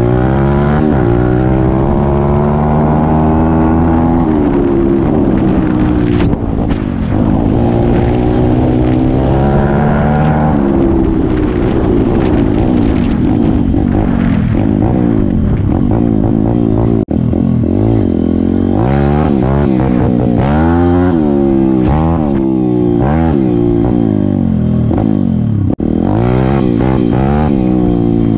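Single-cylinder pit bike engine ridden hard, climbing in pitch through each gear and dropping at every shift. In the second half it revs up and down quickly, over and over, as the bike crosses rough grass. Heard close up from the rider's helmet camera.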